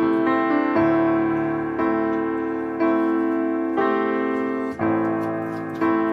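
Background piano music, a new chord struck about once a second and each left to fade.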